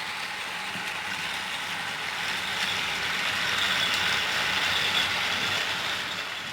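Several battery-powered motorized toy trains (Trackmaster engines and a Thomas & Friends All Engines Go Diesel) running together on plastic track. Their small motors and gears make a steady whirring clatter that grows a little louder toward the middle and fades near the end.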